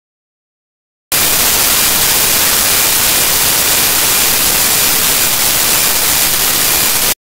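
Loud static noise, a steady hiss strongest in the treble, that switches on abruptly about a second in and cuts off sharply near the end.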